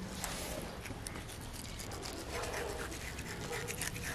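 Knife blade scraping and slicing along a fish's backbone and ribs as a fillet is cut away: a quick run of short scraping strokes.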